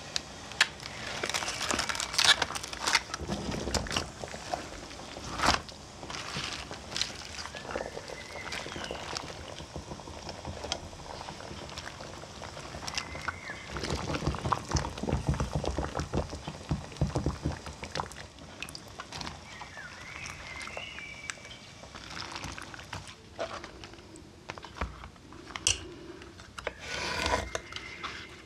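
Savoy cabbage leaves crinkling and crackling as they are pressed into a pot of boiling, bubbling water and turned with metal tongs, with scattered sharp clicks. Near the end, a knife cuts leaves on a wooden board.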